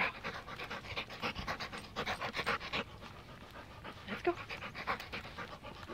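A young Rottweiler panting quickly and rhythmically, open-mouthed, as it trots along on a leash.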